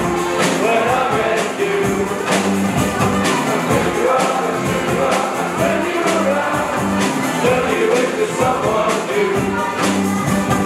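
Up Helly Aa Jarl Squad singing a song together as a group, accompanied by acoustic guitars, with sharp percussive hits through it.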